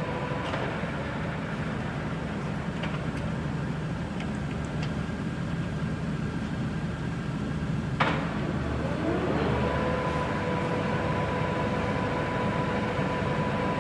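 Dean Smith & Grace Type 21 heavy-duty gap-bed lathe running with its carriage on power feed: a steady hum from the gear train with a constant whine. About eight seconds in, a sharp clack as a feed-gearbox lever is shifted, then the whine rises in pitch and settles into a new steady tone.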